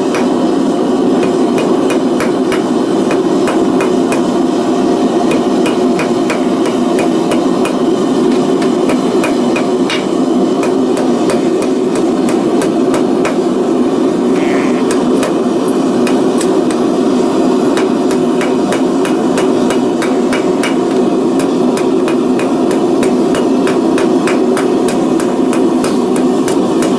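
Hand hammer striking hot steel on an anvil, blow after blow, drawing out the point of a forged scribe, over a steady roar from the forge.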